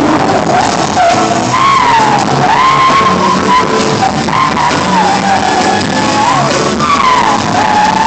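Vacuum cleaner played as a lead instrument: its whine, pitched by the player's mouth on the hose, slides up and down in a wavering melody over a rock band.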